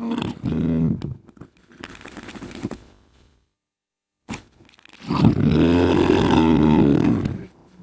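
Hippo-style sound effect: several short, deep grunting calls, a brief silence, then one long, loud roaring call lasting about two and a half seconds.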